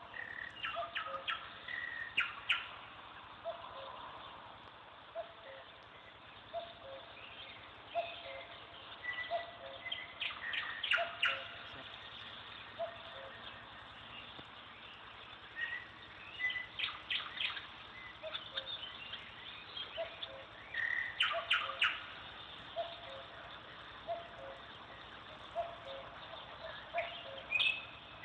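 Birds calling outdoors: clusters of high, quick chirps come every few seconds. Under them a short low note repeats steadily about once a second.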